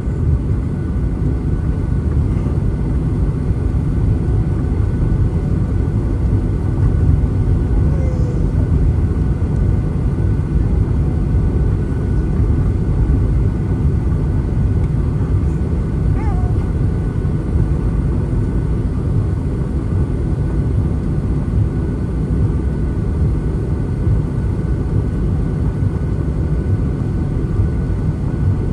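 Steady, loud low rumble inside the passenger cabin of a Boeing 737-900ER, from its CFM56-7B jet engines and airframe, heard from a window seat as the airliner gets ready to depart.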